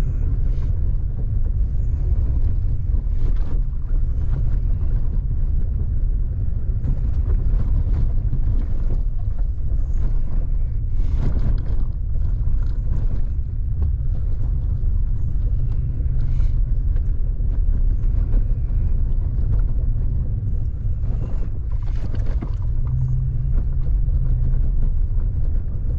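A vehicle driving along a forest road, a steady low rumble with a few brief knocks and rattles from bumps in the road.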